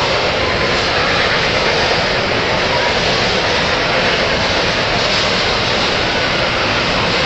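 Steady running noise of a model double-stack container freight train rolling along its track, blended with the constant din of a busy exhibition hall.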